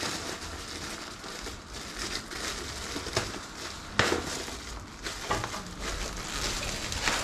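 Old fly screen mesh being pulled out of its frame and handled, crinkling and rustling, with scattered clicks and one sharper click about four seconds in.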